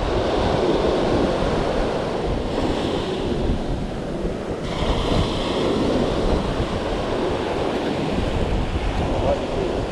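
Surf breaking and washing up a sandy beach in a steady wash of noise, with wind buffeting the microphone.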